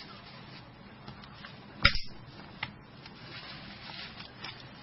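Low steady hum with a sharp plastic click about two seconds in and a fainter click just after: the latches of a Nokia N90's E cover being unlocked.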